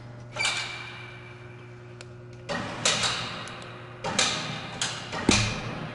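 Overhead hoist jogging a Detroit Diesel Series 60 cylinder head down onto the block in several short bursts, each a sudden rush of noise that dies away, with light metal clanks.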